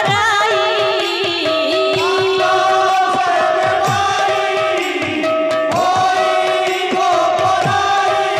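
Kirtan ensemble music: khol drums beating, their low strokes gliding down in pitch, under voices singing and a held, steady melody line that breaks off and resumes.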